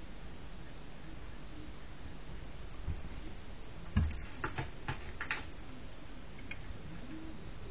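Camera-handling noise as a cat paws at the filming device: a thump about four seconds in, then a short run of light clicks and taps with a faint high ringing, over a steady hiss.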